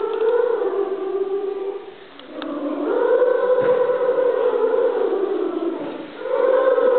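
Children's school choir singing long held notes, the phrases breaking briefly for a breath about two seconds in and again near six seconds.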